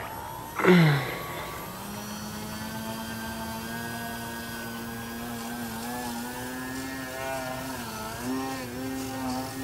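Electric motor and propeller of a Yak 55 EPP foam RC airplane: about half a second in, a brief loud whine whose pitch falls sharply, then a steady drone whose pitch wavers up and down with throttle changes in the second half.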